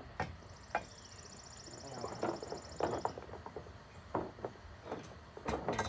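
Scattered light clicks, taps and knocks of metal parts being handled as the cylinder of a Husqvarna 394XP chainsaw is worked loose and lifted off by hand.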